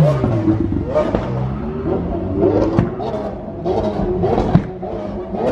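Supercar engines in a street: one engine's pitch falls as a car drives past at the start, then engines rev up several times, with a few short sharp bursts near the middle.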